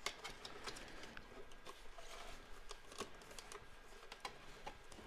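Faint, irregular clicks and taps of packaging being handled.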